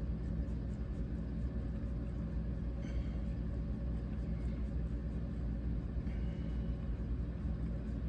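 Steady low mechanical hum from a small motorized display turntable turning a diecast car.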